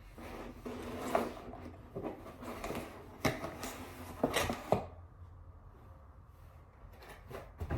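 A parcel being opened by hand: rustling, scraping and a few sharp knocks and clicks of packaging, busiest over the first five seconds and quieter after, with a couple more clicks near the end.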